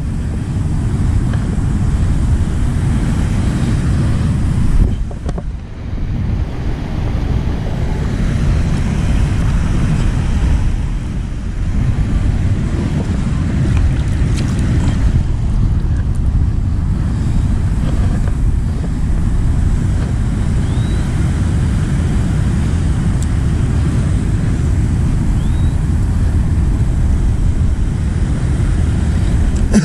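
Strong wind buffeting the microphone, a loud steady rumble that eases briefly about five seconds in, with water washing against the shore rocks beneath it.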